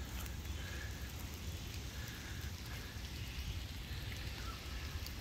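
Steady hiss of light rain falling outdoors, over a low, uneven rumble.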